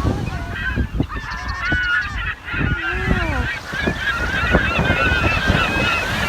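A flock of birds calling over one another: many short, overlapping calls with no pause between them, over wind rumbling on the microphone.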